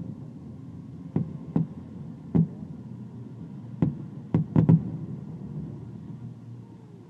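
Fireworks shells bursting: about seven sharp bangs at irregular intervals, the last three in quick succession about halfway through, over a steady low background rumble.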